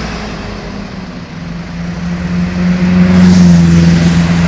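A tour bus passing by: a steady engine drone that grows louder to a peak about three seconds in and then eases off slightly.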